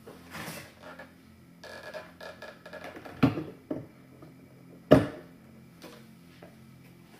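A plastic blender jar being handled and set down onto the blender's motor base: light clattering, then two sharp clunks, the louder about five seconds in, as the jar is seated. The blender motor is not running.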